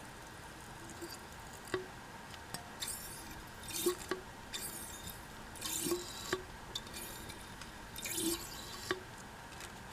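KYB New SR Special gas shock absorber stroking, making a squelching, swishing oil-flow sound ('jubo-jubo') about five times, with sharp clicks along with the strokes. This is the damper's normal operating sound on a new shock, not a sign of lost damping or a leak.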